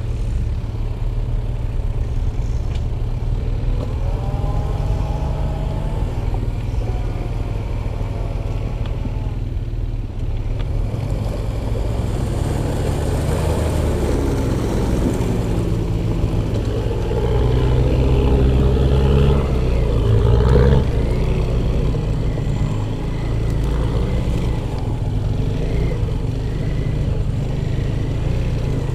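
Off-road vehicle engines running, with the pitch rising and falling as the revs change; loudest about two-thirds of the way through.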